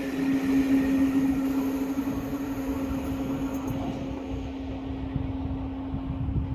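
TGV Atlantique high-speed trainset receding after passing at speed. A steady hum carries on while its higher hiss fades out over the first four seconds or so, over a low rumble of wind on the microphone.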